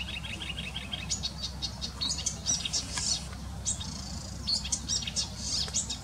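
Song of an Acrocephalus warbler, which the uploader takes for a marsh warbler: a fast, unbroken stream of varied high chattering notes and trills.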